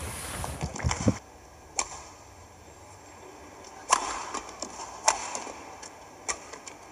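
Badminton shuttlecock struck back and forth by rackets in a rally: a series of sharp, separate hits a second or two apart.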